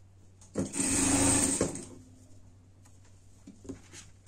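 Sewing machine running in one short burst of about a second, stitching a seam through fleece over foam padding, followed by a few faint knocks of the fabric being handled.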